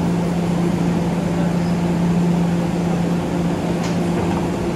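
Steady low hum of a TEMU2000 Puyuma Express tilting electric multiple unit standing at the platform, its onboard equipment running. It holds one constant low tone, with a faint click near the end.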